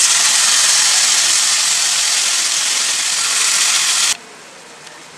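Marinated chicken pieces sizzling loudly in butter on a hot tawa, a steady frying hiss. About four seconds in it drops suddenly to a much fainter sizzle.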